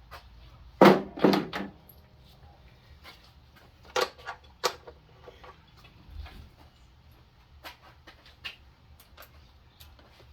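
Hand tools being handled: a loud clatter of several hard knocks about a second in, two sharp clicks a few seconds later, then light scattered ticks.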